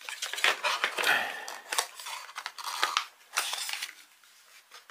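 Cardboard packaging being handled: scrapes, rustles and light clicks as a white cardboard insert is worked loose and lifted out of the box, dying away near the end.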